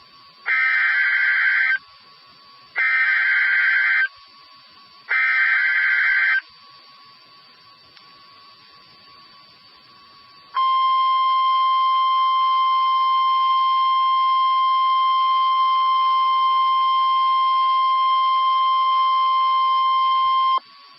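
NOAA Weather Radio Emergency Alert System signal. Three short warbling bursts of SAME digital header data, each about a second long, are followed by a few seconds of low hiss. Then the steady 1050 Hz warning alarm tone holds for about ten seconds and cuts off sharply.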